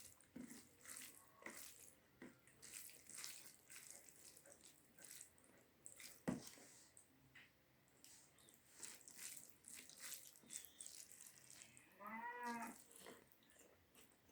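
Faint close-up chewing and wet mouth sounds of someone eating a mouthful of rice, with scattered soft clicks and smacks and one sharper click about six seconds in. A brief hum with a wavering pitch near the end.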